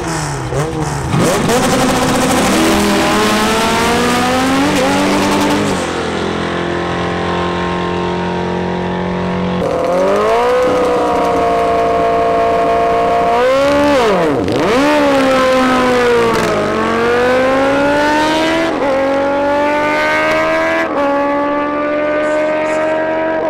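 Drag-racing engines at full throttle. A car revs hard and pulls away in the first few seconds. Then motorcycles rev at the line and launch down the strip, their engine pitch climbing and dropping back with each upshift, three times near the end.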